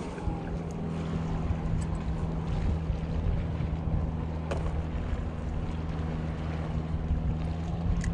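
A boat engine running steadily, a low even hum, with wind noise on the microphone.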